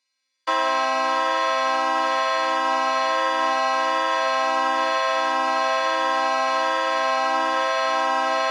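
Emergency alert attention tone: a harsh, horn-like alarm that starts about half a second in after a brief silence and holds steady at one pitch.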